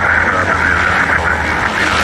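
De Havilland Canada DHC-6 Twin Otter's two PT6A turboprop engines running as the plane rolls along the runway. It is a loud, steady rush over a low drone.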